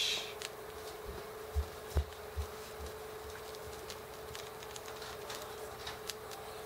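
Faint, irregular scratching ticks from a luna moth working its way out of its silk cocoon, over a steady hum, with three soft low knocks about one and a half to two and a half seconds in.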